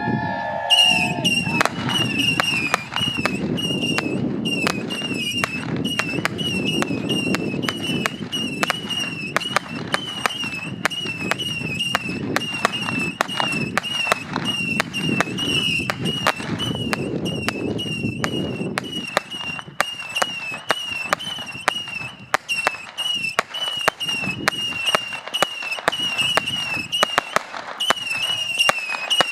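Fireworks going off in a long rapid barrage: a steady string of sharp pops, about two a second, each carrying a short wavering whistle. A low rumble underneath dies away about two-thirds of the way through.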